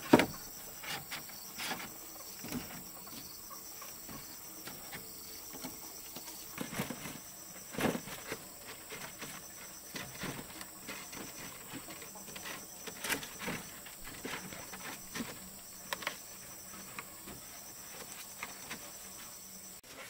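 Irregular light knocks, taps and rustles from outdoor handwork over a steady high-pitched insect chirring.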